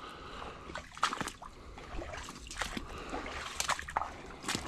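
Footsteps wading through shallow, mucky stream water: a run of irregular splashes.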